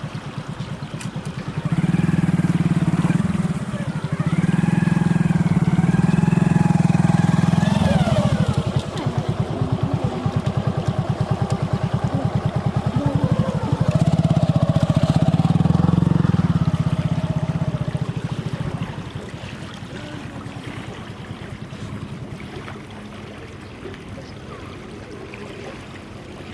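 A small engine running with a rapid, even chugging, loudest for a few seconds twice and then fading away. Wavering higher-pitched sounds, perhaps voices, ride over it while it is loudest.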